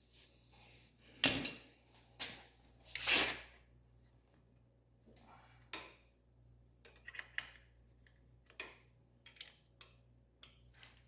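Hand tools and metal brake parts clinking and clanking at irregular intervals, with the loudest clanks about a second in and near three seconds, then lighter ticks and taps.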